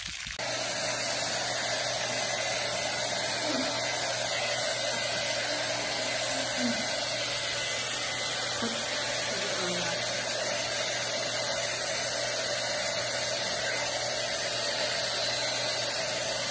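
Steady rushing noise from a small electric blower motor, like a hair dryer, with a low steady hum underneath; it switches on abruptly just after the start.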